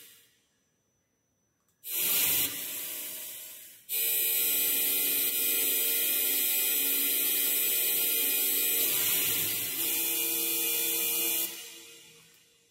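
Electronic noise from the X-FM synthesizer in the frakMSP suite, set to NOISE and driven by video: a short hissing burst about two seconds in that dies away, then a steady, loud hiss, strongest in the treble with faint steady tones underneath, that fades out near the end.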